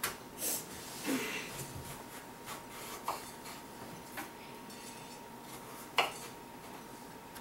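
Kitchen knife slicing a green apple on a wooden cutting board: the blade scrapes through the fruit and knocks against the board a handful of times, the sharpest knock about six seconds in.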